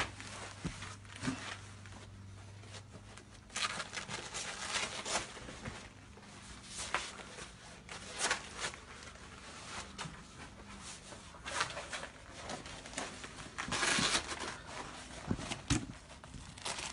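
Nylon plate carrier vest rustling and scraping as it is pulled on over the head and its straps and pouches are adjusted, in irregular scratchy bursts, the loudest about fourteen seconds in.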